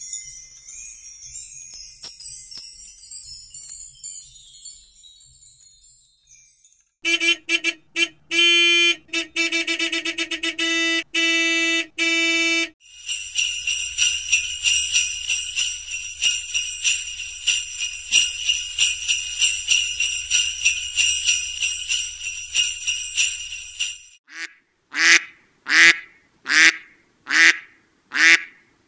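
A run of sound effects: wind chimes tinkling, then a series of short pitched tones, then sleigh bells jingling steadily for about ten seconds. Near the end, ducks quacking, about two quacks a second.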